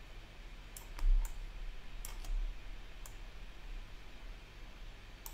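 Several sharp computer mouse clicks, some in quick pairs, over a low steady hum. A dull low thump about a second in.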